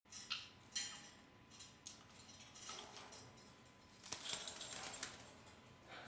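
Two caiques playing on a cage top's hanging plastic toys and metal clip: a string of sharp clicks and rattles, with a busier jangling stretch about four seconds in.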